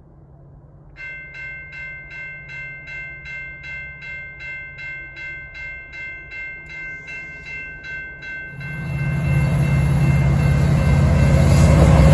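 Grade-crossing warning bell ringing at about two and a half strokes a second. About eight and a half seconds in, the loud rumble of an approaching diesel-hauled intermodal freight train takes over.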